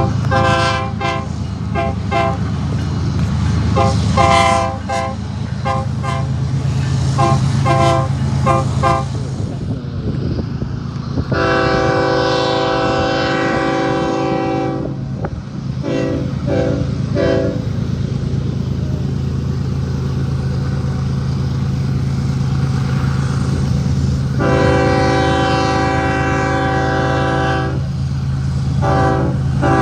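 Nathan Airchime K5-series five-chime train horn sounding a chord, first as a rapid string of short toots, then as two long blasts of a few seconds each with more short toots between and after. A steady low engine hum runs underneath.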